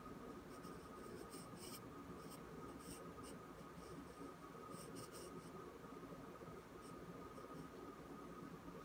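Graphite pencil scratching softly across paper in short, irregular strokes as lines are drawn.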